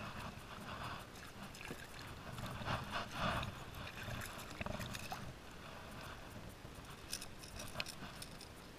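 Spinning reel being wound in on a lure retrieve, with water lapping at the kayak and a few light clicks of tackle near the end as the lure comes out of the water.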